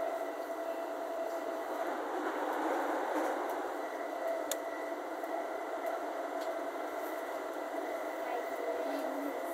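Steady running noise inside the passenger car of an E231 series commuter train travelling at speed, with a faint steady whine and a single sharp click about four and a half seconds in.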